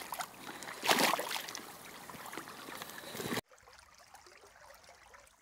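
Water sloshing and splashing as someone wades through a stream in boots, with one loud splash about a second in. The sound cuts off suddenly a little past halfway, leaving only faint background noise.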